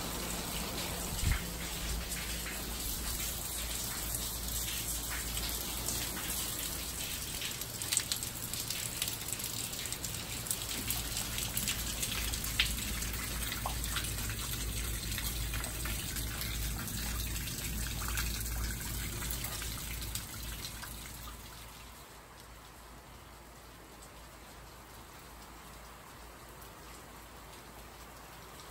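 Rain falling steadily, an even hiss of drops with a few sharp knocks. A little over two-thirds through it drops to a softer, quieter rain.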